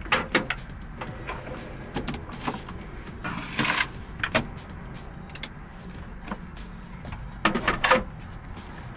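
Plugs being pushed into the outlets of a Growatt Infinity 1300 portable power station and cables handled, making scattered clicks and knocks. A brief scraping rustle comes about midway, and a quick run of knocks comes near the end as a small fan is set down beside the unit.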